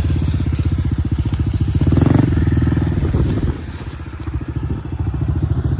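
Dirt bike engine running under the rider, a fast even pulsing. It gets louder about two seconds in, eases off briefly about three and a half seconds in, and picks up again.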